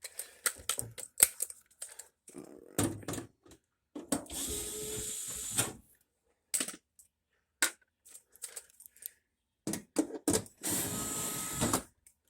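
Cordless drill-driver running in two short spells of about a second and a half each, backing out panel screws, between scattered clicks and clatter of parts being handled.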